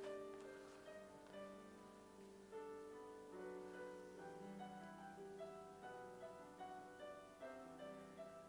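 Soft background piano music, slow held notes and chords played quietly.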